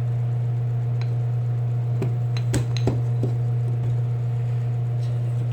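Steady low electric hum from a machine left running to dry freshly oiled typewriter parts, with a handful of light clinks, like metal or glass being touched, between about two and three and a half seconds in.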